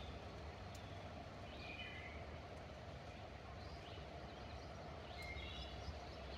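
Outdoor ambience: a steady background hiss with a low rumble, and a few short bird calls, the clearest about two seconds in and again about five seconds in.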